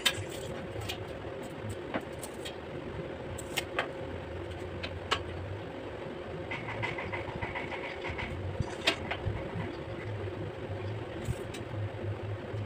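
Occasional sharp clicks and taps of hand tools, a spirit level, metal bar and tape measure, set down on and moved across the metal-framed countertop, over a steady motor hum.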